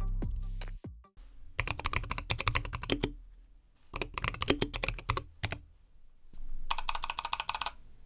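Typing on a mechanical keyboard in a hand-made cork case: three runs of quick key clicks, each about a second and a half long, with short pauses between. Background music fades out within the first second.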